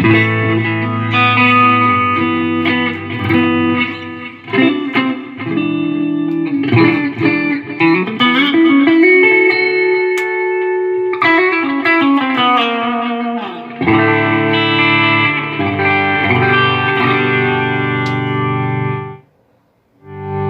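Electric guitar played through a Line 6 Helix multi-effects unit: sustained ringing chords and notes with effects, sliding pitch bends in the middle, cutting off shortly before the end. A sound test of the unit after its master volume pot was repaired.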